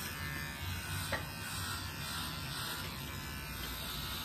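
Electric pet hair clipper buzzing steadily as it runs through a cat's fur.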